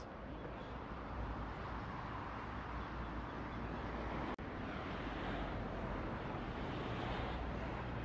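Steady outdoor background noise, an even rushing hiss over a low rumble, with no bird calls heard. It breaks off for an instant about four seconds in.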